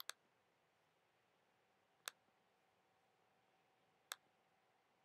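Three sharp clicks, evenly about two seconds apart, in near silence, with a faint steady tone in the background.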